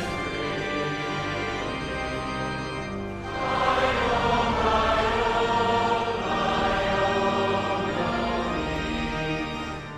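Choir singing a hymn in sustained phrases; a new, louder phrase begins about three seconds in.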